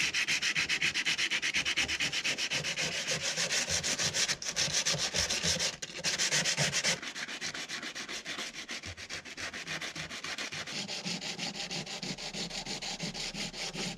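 Sandpaper rubbed by hand over the car's rusted body panels in quick back-and-forth strokes, to prepare the surface. The rasping is steady and rhythmic, with two short breaks, and grows quieter after about seven seconds.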